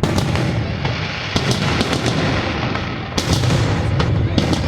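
Aerial fireworks exploding in quick succession: a dense run of booms with crackling in between, and no pause.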